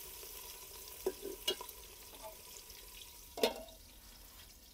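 Sliced onions sizzling in hot ghee in an aluminium pot, with a steel ladle stirring and clicking against the metal. A louder clink about three and a half seconds in as the lid goes on, after which the sizzle is slightly quieter.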